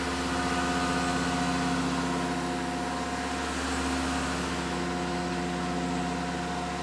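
Tormach PCNC 1100 CNC milling machine running steadily, with a constant whine made of several steady tones over a low hum. Its spindle is turning an end mill that cuts a circular pocket in a metal block, with the X and Y axes moving together to interpolate the circle.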